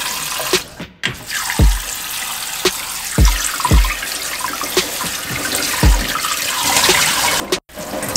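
Water splashing and sloshing in a bowl as hands rub and wash pieces of pork skin in cold water. A low, thudding beat from background music runs underneath.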